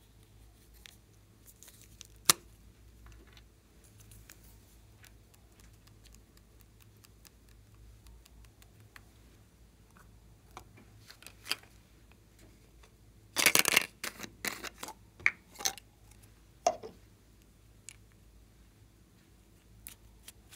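Small plastic pens and caps being handled: one sharp click about two seconds in, then a quick clatter of clicks a little past the middle, followed by a few more separate clicks. Between them it is quiet.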